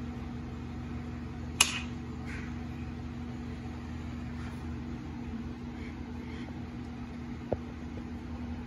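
Steady low room hum with a faint constant tone, and one sharp click about a second and a half in.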